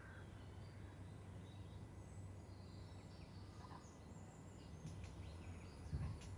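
Quiet outdoor ambience: a faint steady low hum with a few faint, distant bird chirps.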